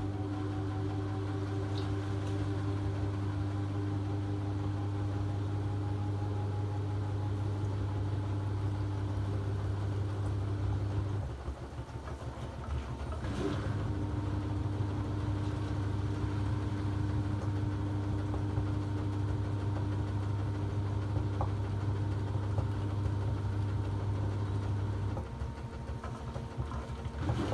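A steady low mechanical hum that switches off about 11 seconds in, comes back on with a click two seconds later, and switches off again shortly before the end.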